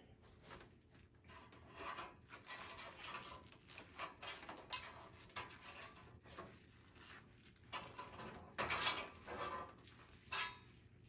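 Styrofoam packing being pulled out from inside a steel PC case: irregular scraping and rustling as the foam and gloved hands rub against the metal frame, loudest about nine seconds in.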